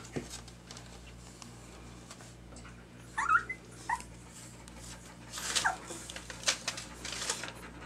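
Two-week-old puppies whimpering: short, high squeaky whines about three seconds in, again about a second later, and a falling whine around five and a half seconds, with faint scuffling clicks in between.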